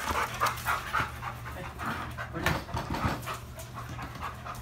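A dog panting in steady strokes, loudest in the first second and then fainter, with a couple of light knocks near the middle.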